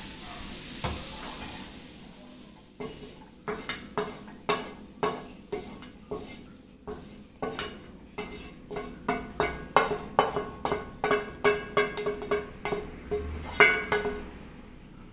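Fried chopped onions being scraped off a hot nonstick pan into a steel plate with a spoon: a faint sizzle dying away, then repeated scrapes and taps of the spoon on the pan and plate, about two a second and quicker near the end, with a light metallic ring.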